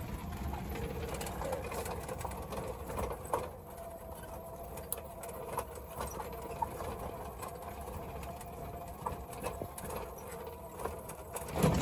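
Small electric car's drive motor whining steadily, heard from inside the cabin as it climbs slowly over a rutted dirt track, with low rumble and scattered light knocks and rattles from the tyres and body.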